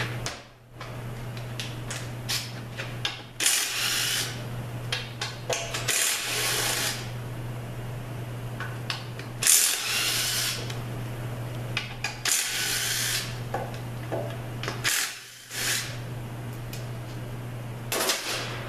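Cordless power driver spinning out the bolts inside an automatic transmission's bell housing, in about six short bursts of roughly a second each, the last two briefer. A steady low hum runs underneath.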